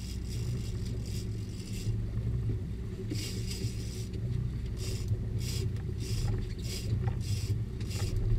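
Big-game fishing reel working under load, giving short bursts of rapid clicking and scraping as line is wound in or pulled off against the drag. A boat engine idles under it with a steady low hum.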